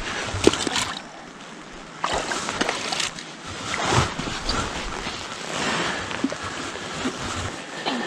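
Shallow river water splashing and sloshing at a sandy bank, with scattered knocks and louder surges about two, four and six seconds in.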